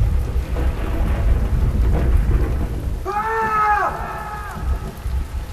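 Rain falling steadily with a deep, continuous rumble of thunder. About three seconds in, a man shouts a short phrase over it.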